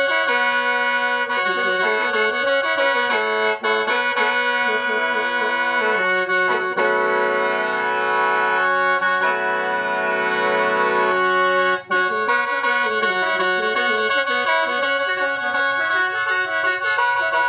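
Khaen, the Lao bamboo free-reed mouth organ, played solo: a running melody over steady drone notes, with a long held chord in the middle and two very brief gaps in the sound.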